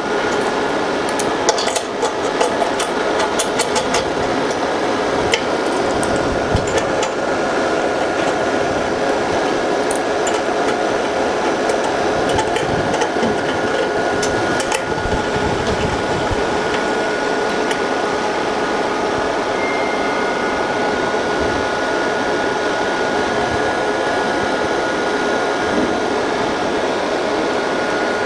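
Steady whirring hum of a fibre laser back-glass separating machine's cooling fan, with a steady high tone in it. Light metallic clicks in the first few seconds as a hex key turns the steel clamp screws on the phone mould, and a few more clicks later.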